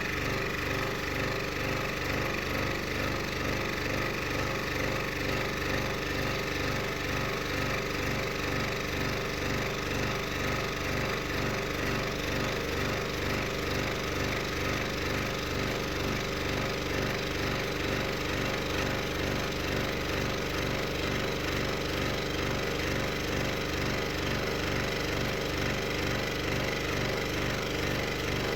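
Scroll saw running steadily with a rapid, even reciprocating stroke, its Pegas No. 5 spiral blade cutting through 12mm plywood.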